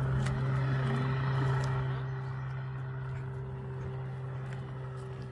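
A motorboat's engine running with a steady drone, getting slightly quieter about two seconds in.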